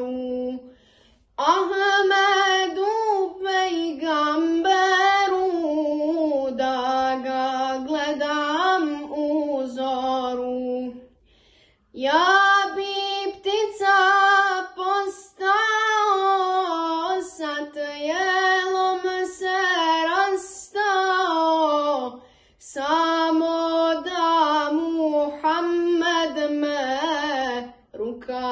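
A boy singing a Bosnian ilahija (Islamic devotional song) solo and unaccompanied, in long wavering phrases with short pauses for breath.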